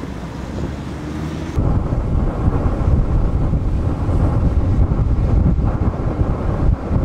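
Strong wind buffeting the microphone over the rush of large storm waves on Lake Michigan breaking against the shore. About a second and a half in, the sound turns abruptly louder and deeper, with the wind on the microphone taking over.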